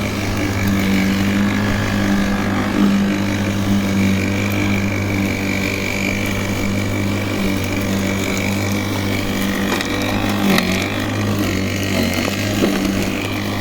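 Worx 40 cm cordless battery lawnmower running steadily, its electric motor and blade giving an even hum that dips briefly about ten and a half seconds in.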